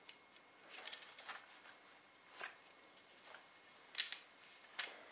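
Faint, scattered rustling and light handling noises from hands gripping and turning a plastic-coated garden stake wrapped with insulating tape, with a few short sharper ticks about two and a half and four seconds in.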